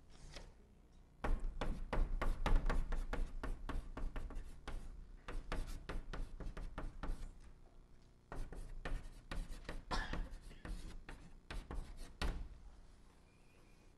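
Chalk writing Chinese characters on a blackboard: quick taps and scrapes of the chalk, stroke by stroke, in two runs with a short pause about eight seconds in.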